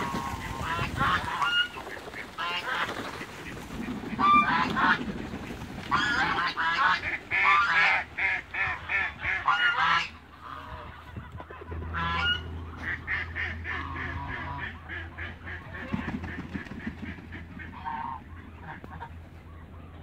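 Toulouse geese honking over one another in a flock, many short repeated calls. The calling is loudest and densest in the first half, then thins out and grows quieter after about ten seconds.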